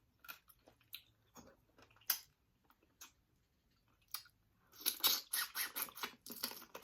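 Close-miked mouth eating sounds from a person eating spicy seafood boil: a few scattered wet clicks, then about two seconds of dense chewing and smacking near the end.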